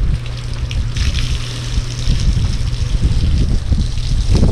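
Water from a hose running and splashing onto a wet wooden deck.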